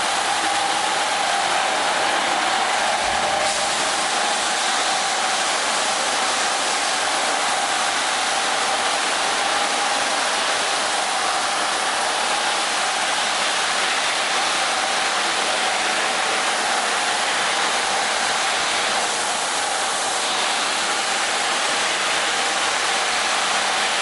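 Automatic carpet washing machine running: rotating brush heads scrub a soaked rug under spraying water jets. The machinery and water make a steady hiss with a constant mid-pitched whine.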